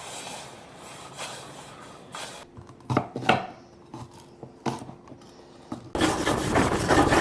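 Knife chopping on a cutting board, a few separate sharp knocks, followed about six seconds in by a loud burst of dense noise lasting just over a second that starts and stops abruptly.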